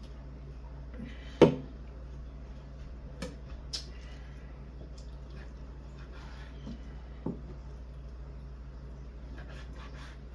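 Chef's knife slicing raw elk backstrap on a wooden cutting board, with a few knocks on the board, the loudest about a second and a half in. A steady low hum runs underneath.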